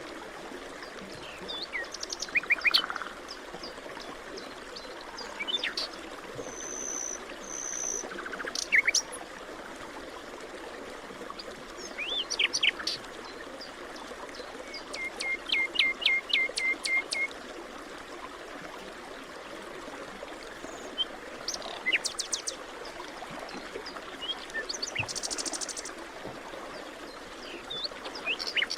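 Wild birds chirping and singing in short calls every few seconds, including a fast trill of repeated notes about halfway through, over a steady rush of running water.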